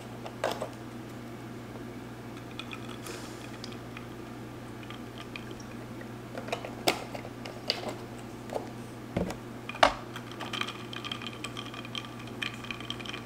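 Scattered light clicks and taps of a carton and a plastic straw against a tumbler as almond milk is poured in and stirred, with a firmer knock a little before ten seconds in. A steady low hum runs underneath.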